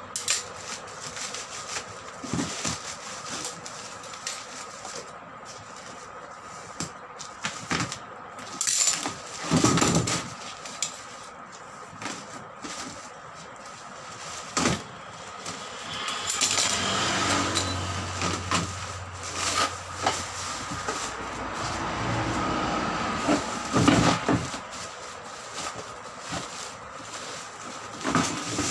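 Woven plastic sack being cut open with scissors and pulled apart: snips, crackling rustles of the stiff sacking and scattered clicks and knocks, with a faint steady hum behind.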